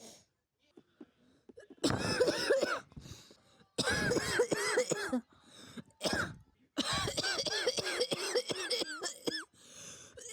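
Person with a chronic smoker's cough coughing in three long bouts, each a rapid run of harsh, voiced coughs. The last bout is the longest, and there is a short cough and faint breaths in between.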